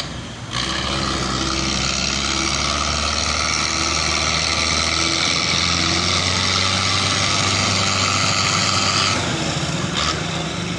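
Belarus tractor diesel engine running, picking up revs about half a second in with a loud, steady hiss and whine over the engine note, then dropping back about nine seconds in. A few sharp clicks near the end.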